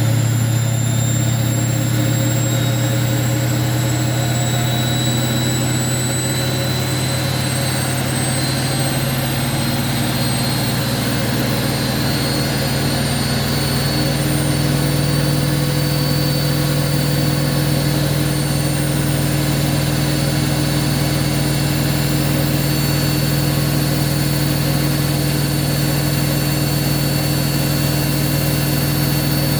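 Hoover washing machine running loud, which its owner calls 'gone crazy': a steady motor whine over a heavy low hum, the whine climbing slowly in pitch over the first dozen seconds as it speeds up, the hum shifting and thickening about nine seconds in, then holding steady.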